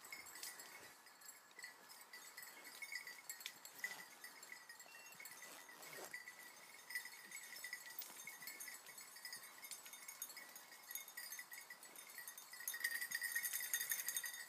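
Small bells on the hounds' collars tinkling faintly and unevenly as the dogs work through grass and brush, growing louder near the end as a hound comes close, over soft rustling of footsteps and vegetation.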